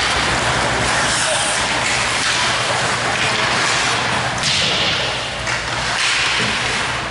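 Ice hockey rink game noise: skates scraping the ice with scattered knocks of sticks and puck, and a brief louder rush of noise about four and a half seconds in.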